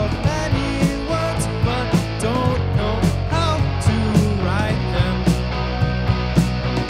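Live rock band playing: a drum kit keeping a steady beat about twice a second under electric bass and two electric guitars, with a lead vocal on top.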